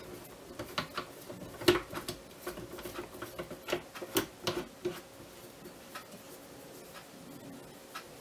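Light metal clicks and taps of the milling adapter being fitted and tightened by hand through the headstock spindle of an Atlas 618 lathe, the motor stopped. The clicks are busiest in the first five seconds, then thin to a few faint ticks.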